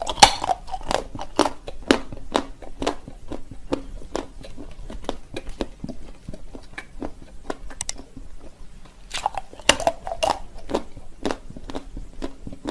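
Close-miked crunchy biting and chewing of an edible novelty "ping-pong ball", a run of sharp, separate crunches about two a second, thickening about nine to ten seconds in.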